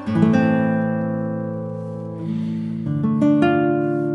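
Background music: acoustic guitar chords plucked a few times and left to ring out, fading slowly between strokes.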